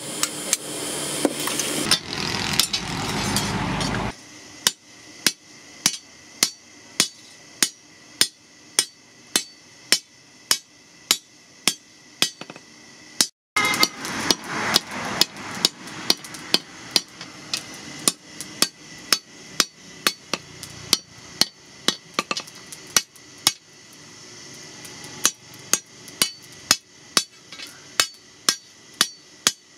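Hand hammer striking a red-hot chainsaw blade on a steel post anvil: forging blows at a steady pace of about two a second, with a short break about halfway. A steady rushing noise runs under the blows for the first few seconds.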